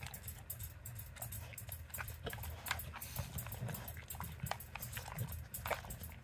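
A dog nosing at a plastic treat puzzle toy, pushing its sliding lids about, with many quick, irregular plastic clicks and clacks.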